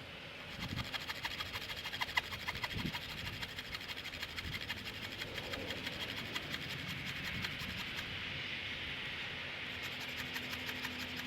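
Fiskars handsaw cutting through a wet conifer branch: a steady back-and-forth rasp of the teeth in quick strokes, starting about half a second in.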